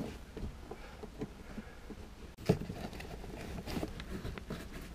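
Scattered soft knocks and rustles of hands handling a plastic RV toilet at its base, with one sharper knock about two and a half seconds in.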